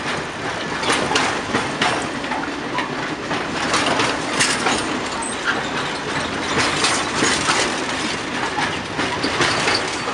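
Freight wagons of a cement train rolling past during shunting, their wheels clacking irregularly over rail joints and points.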